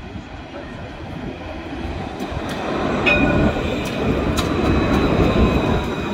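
Lignes d'Azur tram running along the track, its rumble growing louder as it draws near. About halfway through, a thin, steady high-pitched tone joins it, along with a few sharp clicks.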